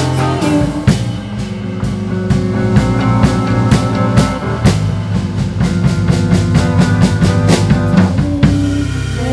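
A live rock band with drum kit, electric guitar and bass plays, the drums busy and prominent. The drumming stops abruptly near the end, leaving held guitar and bass notes.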